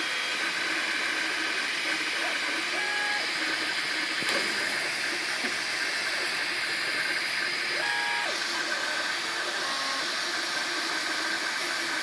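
FDM 3D printer at work: a steady fan hiss, with the stepper motors giving short pitched whines as the print head moves, about three and eight seconds in.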